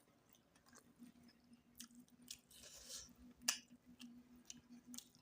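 A person chewing food close to the microphone: faint, irregular wet smacks and mouth clicks, with one sharper click about three and a half seconds in, over a faint steady hum.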